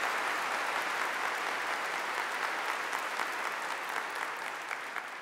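Large congregation applauding, many hands clapping steadily, beginning to ease off near the end.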